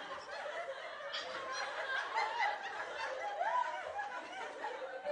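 A teenage boy laughing.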